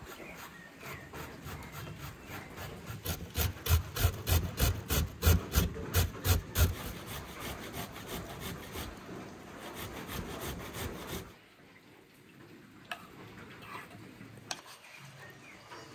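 A carrot being grated on a metal box grater: rapid, even rasping strokes, about three a second, loudest for a few seconds and then softer. They stop suddenly near the end, leaving a quieter stretch with a couple of light taps.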